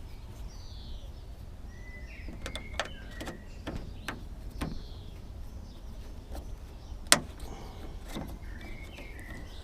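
Scattered sharp clicks and light knocks of hand tools and plastic door-trim parts being handled on a car door, over a low rumble, with birds chirping now and then.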